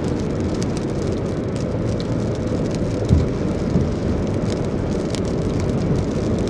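Steady road and engine noise heard inside a moving car, with scattered light ticks of raindrops hitting the car. There is one thump about three seconds in.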